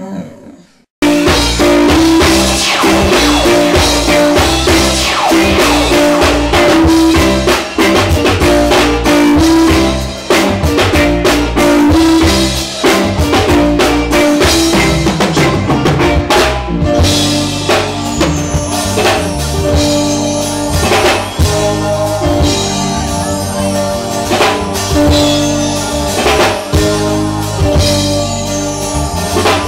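Live reggae band playing: drum kit and bass under held keyboard notes, starting suddenly about a second in.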